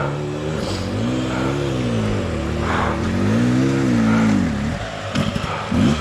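Off-road enduro motorcycle engine revving, its pitch rising and falling in several surges as the throttle is worked, with a few quick sharp throttle blips near the end.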